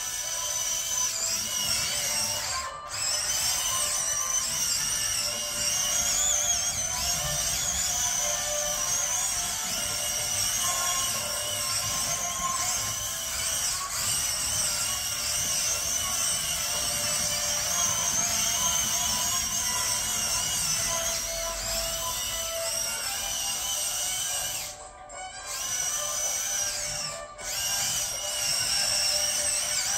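Music with a high, wavering whine running through it, mixed with the whir of small electric drive motors in remote-controlled toy robots. The sound dips briefly three times.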